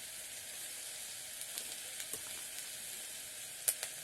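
Pasta and vegetables sizzling in the hot pot of an electric kettle: a steady hiss with faint crackles, and a sharp click near the end.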